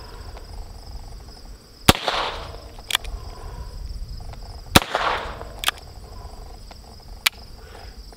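Two sharp shots from a Heritage Barkeep .22 revolver, about three seconds apart, each with a short ring-off, and fainter sharp cracks in between. A steady high chorus of insects runs underneath.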